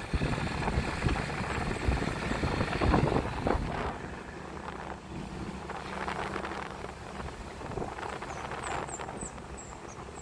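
Road and wind noise of a moving vehicle, with wind buffeting the microphone, loudest about two to four seconds in. A few short high chirps near the end.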